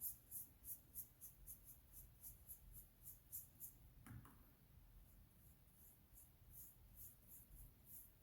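Paintbrush strokes on paper: faint, quick scratchy dabs about three or four a second, pausing briefly after a soft knock about halfway through, then starting again.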